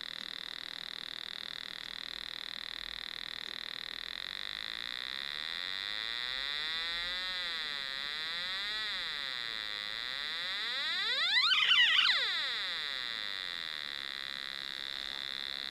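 Electronic rattling buzz from a dual NE555 astable-multivibrator sound effects generator, played through a small loudspeaker. Its tones glide up and down as the potentiometers are turned, sweeping widely and growing loudest about three-quarters of the way in.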